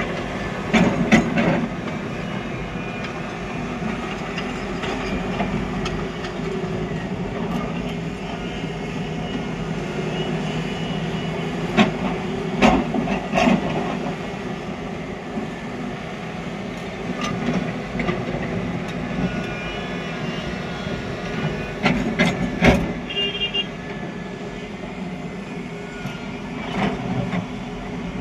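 Heavy excavator's diesel engine running steadily under load, with bursts of loud clanking and banging about a second in, near the middle and about three-quarters of the way through.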